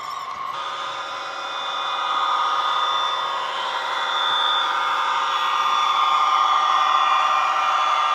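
Bachmann Class 57 model locomotive's factory DCC sound: a recorded diesel engine running under power, played through a pair of small tablet speakers fitted in place of the standard speaker. It gets louder as the model approaches.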